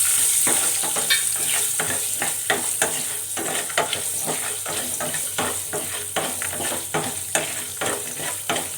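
Coconut pieces and whole spices (coriander seeds, pepper, cumin, dried chillies, roasted gram) sizzling as they roast in oil in a pan, stirred with a spoon that scrapes the pan in quick repeated strokes.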